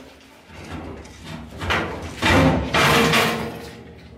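A steel cooking grate scraping and clanking against the metal rails inside a large steel barrel smoker as it is shoved in. It catches because the grate sits higher than the rail clearance allows. The noise starts about a second and a half in and is loudest in the middle, with some metallic ringing.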